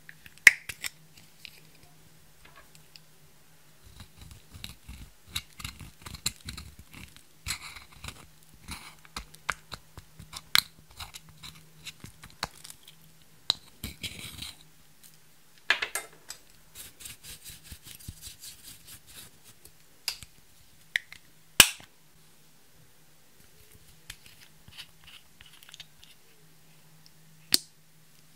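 Plastic makeup compacts handled and clicked open, with pressed eyeshadow scraped and crumbled out of its pan by a pointed plastic tool. It is a run of fine crackly scraping and small taps, broken by a few sharp plastic clicks: one near the start, one about three-quarters of the way through and one near the end.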